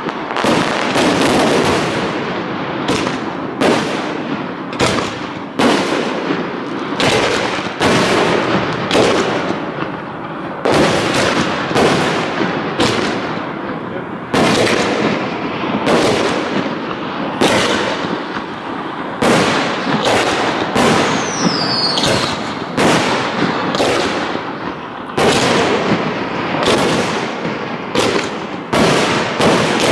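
Aerial fireworks shells bursting overhead in quick succession, one to two loud bangs a second with crackling in between. A brief falling whistle cuts through about two-thirds of the way in.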